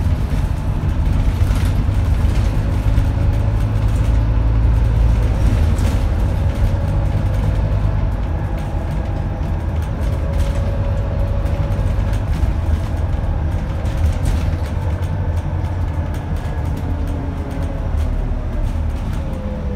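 Scania N230UD double-decker bus heard from inside the passenger saloon while under way: its Scania DC9 five-cylinder diesel and drivetrain run under a heavy low rumble with road noise, and a whine wanders in pitch before falling near the end.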